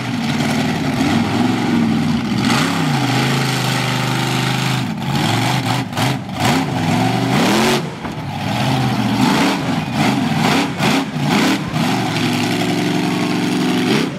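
Monster truck engine revving hard and repeatedly, its pitch sweeping up and falling back again and again as the truck is driven. A few sharp knocks come about halfway through.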